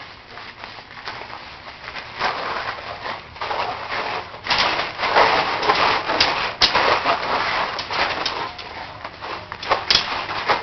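Toy swords knocking together in a mock sword fight: a few sharp clacks over an uneven, noisy scuffle.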